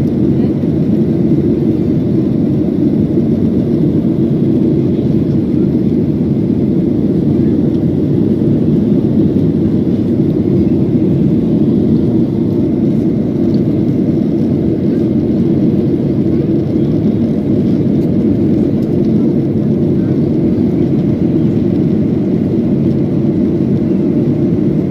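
Steady cabin noise inside a jet airliner at cruise: the engines and the rush of air along the fuselage give an even, low drone that does not change.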